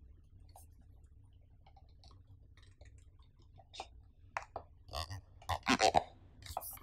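Hands handling a cardboard product box: faint scattered taps and clicks of fingers on the card, then louder rustling and scraping of the box being shifted in the hands over the last couple of seconds.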